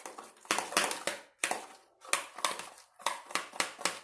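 Homemade shampoo-and-glue slime being stirred and worked as it firms up, giving an irregular run of about a dozen short, sticky squishing and crackling noises.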